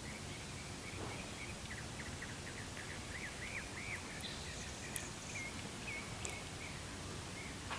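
A songbird singing faintly: a long run of quick, repeated slurred notes, with a short sharp click about five seconds in.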